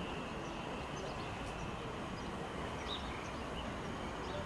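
Steady outdoor background noise, a low rumble and hiss, with a few faint high bird chirps, one about three seconds in.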